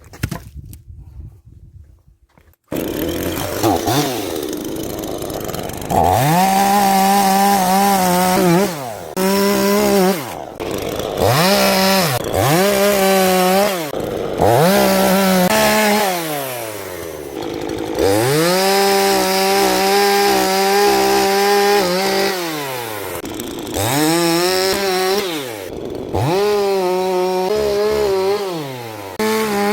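Two-stroke chainsaw cutting firewood logs: it starts abruptly about three seconds in, then is opened to full throttle and let back down again and again, each high-pitched run lasting one to four seconds.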